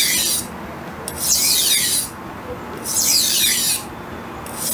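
Steel knife blade scraping in full-length sweeping strokes across a wet 1000-grit whetstone. It is a hissing scrape about every one and a half seconds, each stroke falling in pitch as the edge slides along the stone.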